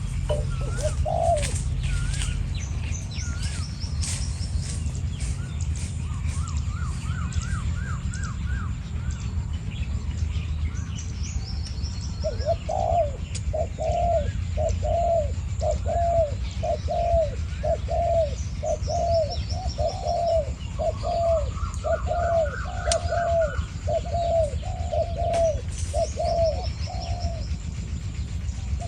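Spotted doves cooing: a short coo near the start, then a long unbroken run of repeated coo notes, about one and a half a second, from about halfway through to near the end, a decoy male and a wild male calling back and forth. Small birds chirp higher up over a steady low rumble.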